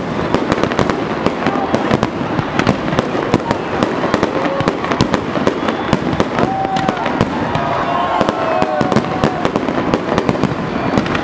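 Fireworks display going off without a break: a dense, continuous crackle of sharp reports from bursting shells and crackling stars, many per second.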